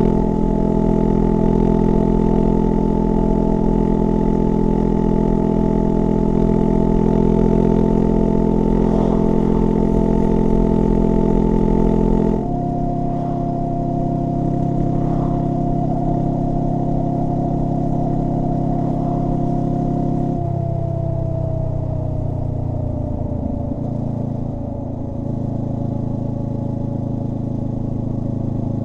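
Honda NX500's parallel-twin engine running through a Black Widow 230SR slip-on exhaust while riding at a steady speed, with a high steady hum alongside it. The engine note shifts lower about 12 seconds in and changes again about 20 seconds in, when the hum slowly falls in pitch.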